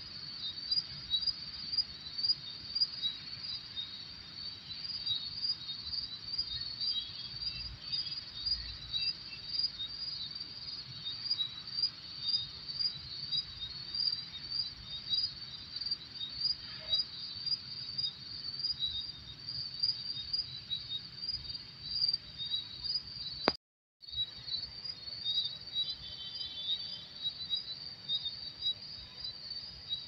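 A chorus of crickets chirping steadily in fast, even pulses. About three-quarters of the way through, the sound cuts out completely for about half a second with a click, then the chirping carries on.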